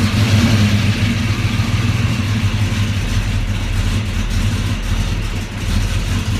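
408 Clevor V8 (351 Cleveland heads on a stroked 351 Windsor block) running steadily just after catching, on its first startup after a rebuild with new rings and bearings.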